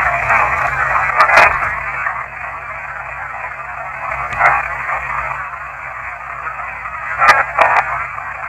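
Tinny, radio-like static hiss from a heavily boosted audio recording, with brief crackling bursts about a second in, near the middle and twice near the end.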